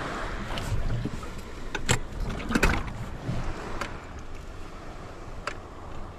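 Sea waves and wind around a small inflatable boat sitting in light surf, with a scatter of sharp knocks and clacks on board, the loudest a quick pair between two and three seconds in. The outboard is not yet running.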